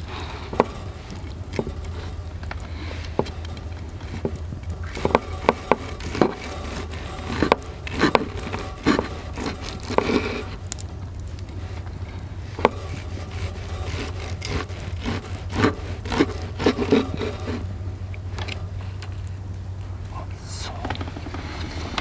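Knife slicing through a thick seared steak, the blade scraping and knocking on a wooden cutting board in bunches of short strokes, over a steady low hum.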